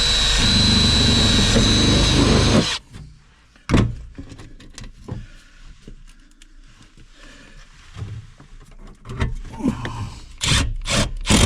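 A power drill running steadily with a high whine, stopping about three seconds in. Then a single knock and scattered tool-handling clatter, with a few sharp clicks near the end.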